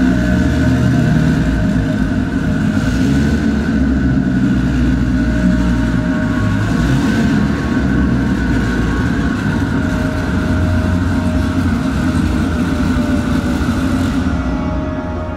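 Twin-turbocharged Dodge Viper ACR's V10 running at low speed, a steady low rumble.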